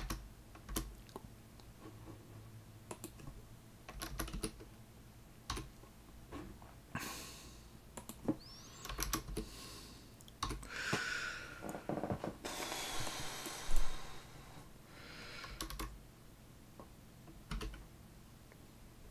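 Sparse computer keyboard keystrokes, a few at a time with pauses, as text is corrected. Midway there are a few longer stretches of hiss-like noise.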